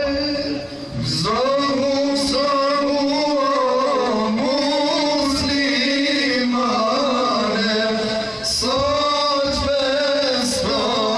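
Male voices singing an ilahi, a Muslim devotional hymn, unaccompanied: a steady low drone is held under a wavering, ornamented melody line. The singing breaks briefly about a second in and again about eight and a half seconds in.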